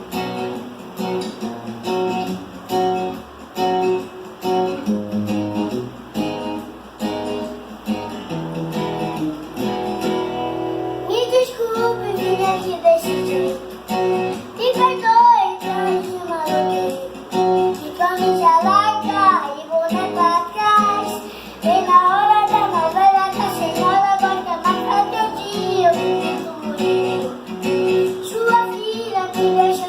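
Sertanejo backing track with strummed acoustic guitar, joined about eleven seconds in by a young child singing the melody.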